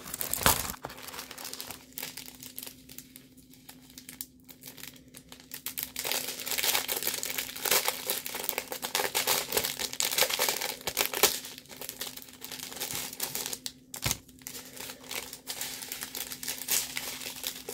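Plastic packaging and zip bags of diamond-painting drills crinkling as they are handled, busiest in the middle, over a low steady hum.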